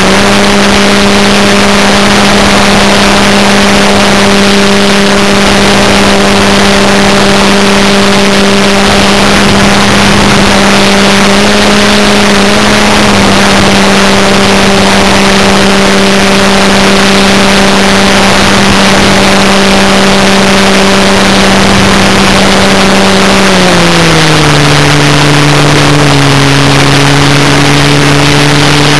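Electric model airplane's motor and propeller humming steadily in flight, under loud wind rush on the onboard camera's microphone. About 23 seconds in, the hum drops to a lower pitch as the motor slows.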